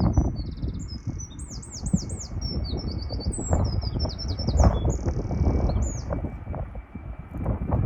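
A small songbird singing a run of quick, varied trills and whistles that stops about six seconds in, over a loud, uneven low rumble and a faint steady high whine.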